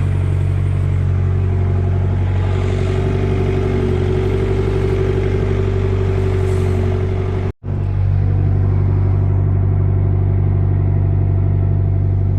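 Takeuchi TB45 mini excavator's Isuzu diesel engine running steadily under work, with a higher whine from about two seconds in. The sound drops out for a split second about seven and a half seconds in.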